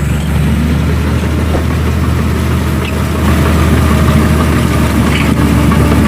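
Heavy-equipment diesel engine running steadily at idle with a low hum, getting a little louder about three seconds in.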